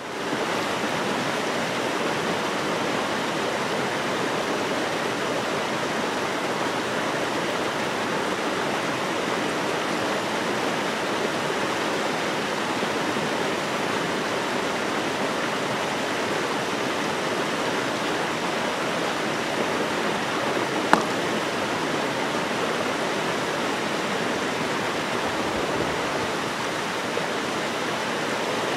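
Mountain stream cascading over rocks into a pool: a steady rush of water that fades in at the start. A single sharp tap stands out about two-thirds of the way through.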